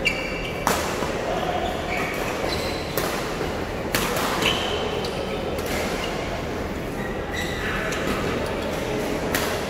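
Badminton rally in a large hall: several sharp racket-on-shuttlecock hits at uneven intervals, with short squeaks of court shoes and a murmur of voices from other courts.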